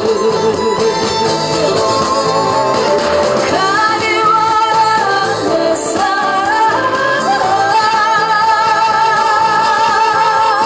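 A woman singing into a microphone over backing music with a steady beat, ending on a long held note.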